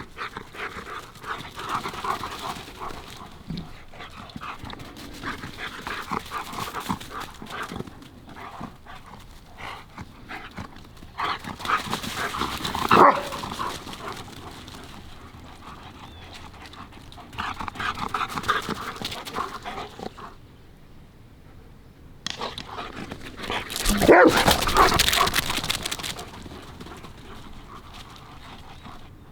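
Two German Shepherds playing rough outdoors, with dog vocal sounds coming and going in irregular bursts. The loudest stretch is a noisy rush with a sharp thump about two-thirds of the way through.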